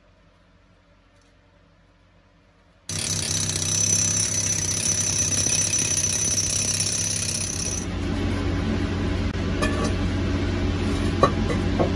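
Quiet for about three seconds, then a hand-held power hammer drill starts abruptly, hammering into the rock wall with a steady high whine. It stops about five seconds later, giving way to a steadier, lower mechanical din with a few sharp knocks near the end.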